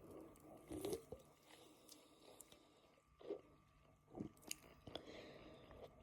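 Faint close-up mouth and throat noises: a few short gulps and wet clicks, the loudest about a second in and the rest spread through the second half.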